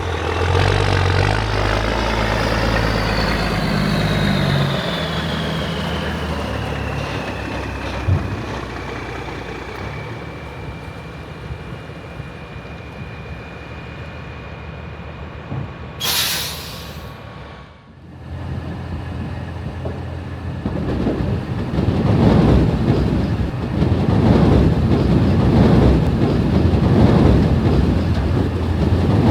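Heavy diesel vehicles working: an engine runs with a whine that falls steadily in pitch, and a short sharp air-brake hiss comes about sixteen seconds in. After a brief break, a louder, uneven rumble of heavy machinery builds up.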